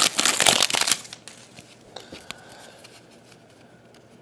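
Trading card pack wrapper crinkling and tearing as the pack is opened, loud for about the first second, then cards handled quietly with a few soft clicks.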